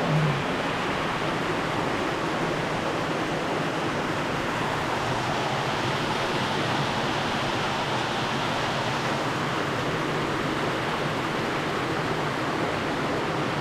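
Steady rush of running water from the small creek flowing out of the cave.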